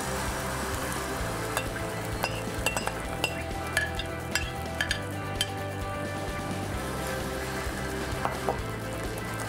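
Egg-and-breadcrumb batter sizzling as it hits hot olive oil in a frying pan. A steel spoon scrapes the bowl and spreads the batter in the pan, giving a run of sharp clinks between about one and a half and five and a half seconds in, and a couple more near the end.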